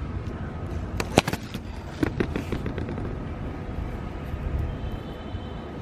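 Handling noise from wires being twisted together by hand: a few sharp clicks about a second in and another cluster at about two seconds, over a low steady rumble.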